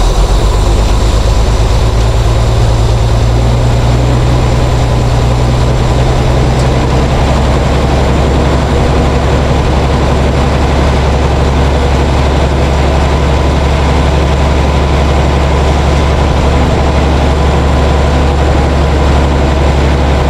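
The 779-cubic-inch Waukesha straight-six of a 1952 Oren fire truck idling loud and steady. It now keeps running on its own, the ignition fed from the generator.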